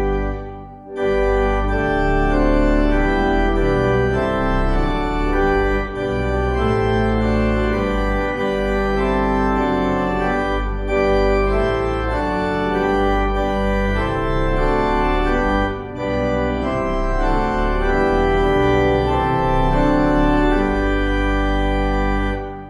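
Organ playing a slow piece in full, sustained chords. There is a short gap about a second in, and the phrases break briefly about every five seconds.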